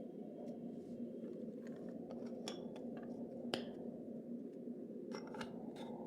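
A few light clicks and taps, the sharpest about three and a half seconds in and a quick cluster near the end, over a steady low hum.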